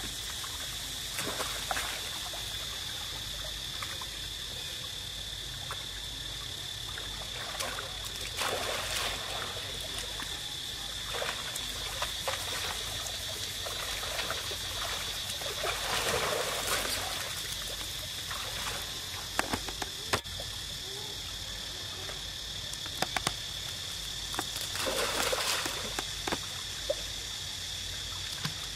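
Water splashing and trickling in several short bursts as macaques swim and scramble in and out of a stone-walled pool, with a few sharp clicks in the second half. A steady high insect drone runs underneath.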